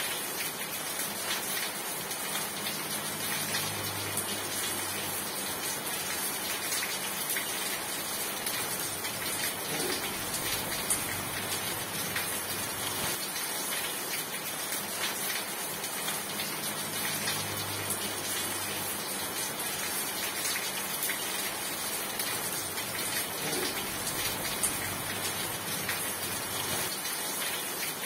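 Steady heavy rain, an even hiss with no let-up, with a faint low hum that swells and fades twice.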